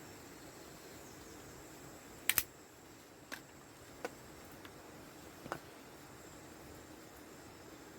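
A small wood fire, lit with hand sanitizer and dry kindling, catching and crackling, with a few sharp irregular pops over a faint steady hiss.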